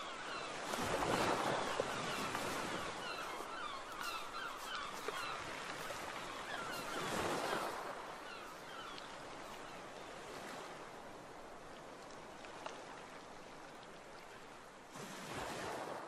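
Ocean waves washing onto a shore, surging about a second in, again around seven seconds and near the end, with many short bird calls over the top.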